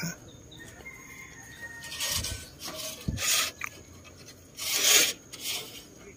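Several short bursts of rustling and rubbing, with two dull low knocks near the middle: handling noise as the phone is moved in close over lettuce leaves.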